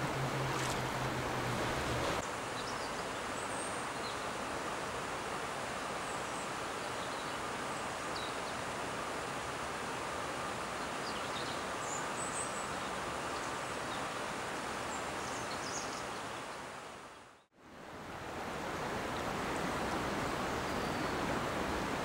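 River water rushing in a steady, even wash. A low steady hum underneath cuts off about two seconds in, and near the end the whole sound fades down to silence and swells back up.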